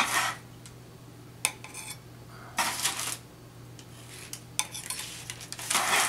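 A spatula scraping under baked cookies on a parchment-lined baking sheet, with the parchment rustling. There are about four short scrapes, the longest about halfway through.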